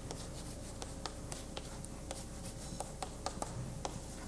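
Writing on a board: irregular small taps and scratches as symbols are written out, over faint room noise.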